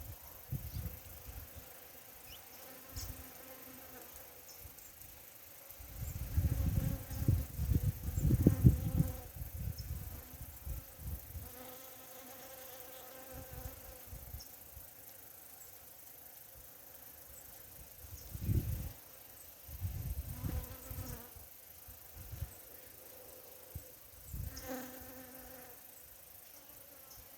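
Bees buzzing as they fly among flowers. The buzz hums steadily and swells loudly as a bee passes close, most strongly about six to nine seconds in, again around eighteen to twenty-one seconds, and briefly near the end.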